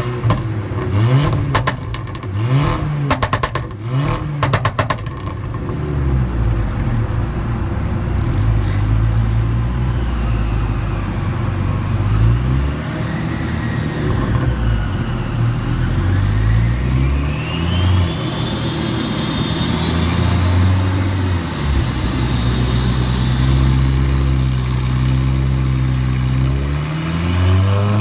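Volkswagen Golf 6R's turbocharged 2.0-litre four-cylinder revved in short blips, its exhaust crackling and popping on overrun as the revs drop, in the first few seconds. After that the engine runs on at changing revs, with a high whine that rises and falls in pitch.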